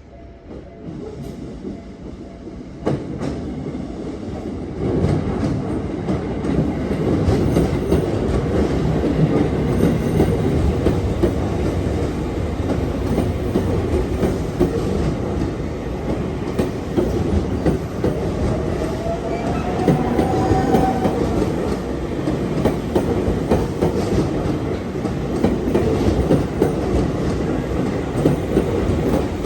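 A Tokyu electric train rolling past at close range, its wheels clattering over the rail joints. The sound builds over the first five seconds, then holds steady, with a faint rising whine about two-thirds of the way through.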